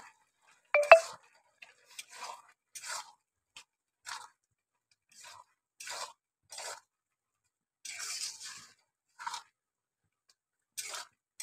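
Metal spatula stirring and scraping a wet mushroom-and-spice mixture in a metal kadai: about a dozen short scrapes at uneven intervals. A sharp metallic clink with a brief ring about a second in is the loudest sound.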